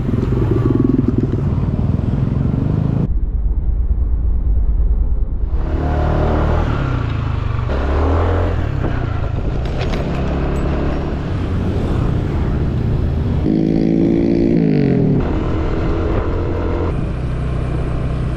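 Motorcycle engine running under way, with road and wind noise; the engine note shifts in pitch about fourteen seconds in.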